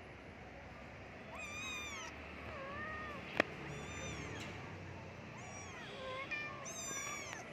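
A cat meowing repeatedly: about five high calls, each rising and falling in pitch. A single sharp click sounds about halfway through.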